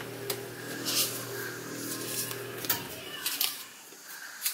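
Light clicks and rustles of hands working a cheese slice out of a plastic cookie cutter on a countertop, over a low steady hum that stops about three seconds in.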